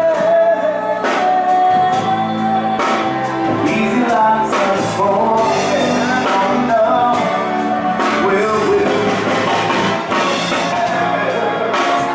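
A song with a sung vocal over a band accompaniment.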